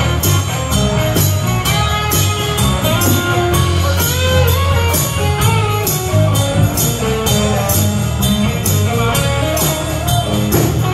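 Live band playing an instrumental passage with no vocals: an electric guitar line over bass guitar and drums, with steady high percussion strikes a few times a second.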